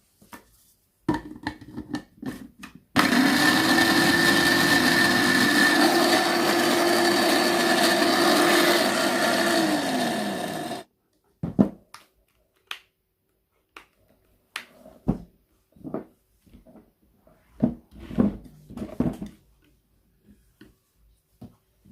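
Reassembled Moulinex blender's motor switched on for a test run: it spins up, runs loud and steady for about eight seconds, then winds down and stops. Scattered clicks and knocks come before it starts and after it stops.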